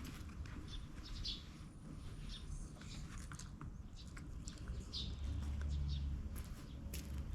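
A few faint bird chirps over quiet outdoor background, with scattered light taps and a low rumble setting in about five seconds in.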